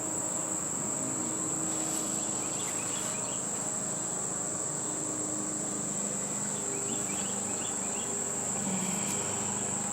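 Agitated honeybees buzzing around an opened hive, their hum wavering in pitch, over a steady high-pitched insect trill.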